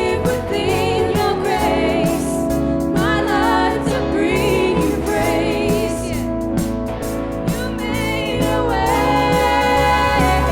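Live contemporary worship music: a band with steady bass and sustained keys or guitar, with voices singing over it.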